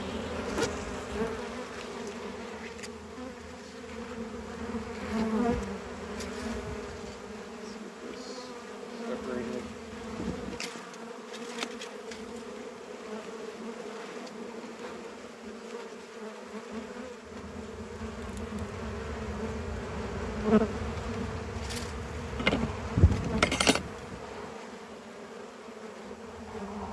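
Honeybees buzzing steadily around an opened hive. A few sharp knocks come near the end.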